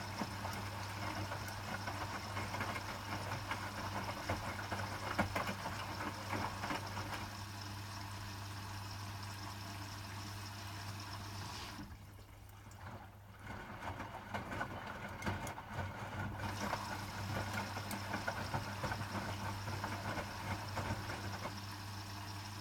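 Hotpoint WMFUG 942 front-loading washing machine on a cotton 60 wash, its drum turning with water sloshing inside over a steady low hum. About twelve seconds in the drum stops for a few seconds, then starts turning again.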